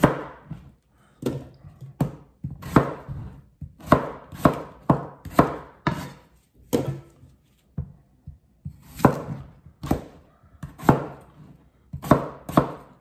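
Chef's knife dicing white potatoes on a plastic cutting board: the blade knocks on the board in uneven strokes, about two a second, with a short lull in the middle.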